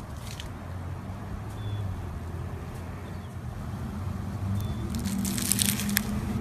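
Slime being handled, giving small crackles and clicks, with a denser run of crackling about five seconds in, over a low steady hum.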